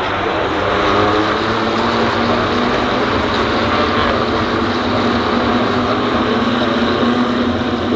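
BMW M2 Cup race cars' engines running flat out on track, a steady loud engine drone with a slight rise in pitch.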